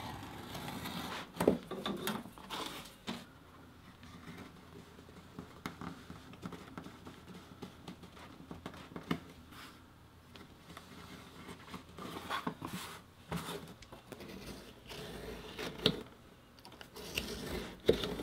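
Knife trimming thick vegetable-tanned leather, the blade scraping through it in short strokes, with scattered clicks and knocks as the tools and steel rule are handled, the sharpest about a second and a half in.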